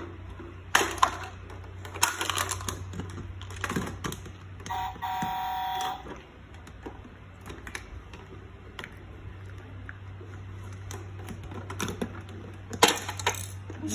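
Plastic Paw Patrol toys clicking and knocking as they are handled and a figure is pushed into a toy truck's cab, in scattered taps. About five seconds in, a steady electronic buzz lasts just over a second, over a low hum throughout.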